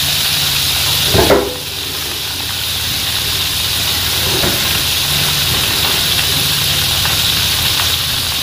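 Flour-battered oyster mushrooms deep-frying in a wok of hot oil: a steady sizzling hiss, with a brief short sound just over a second in.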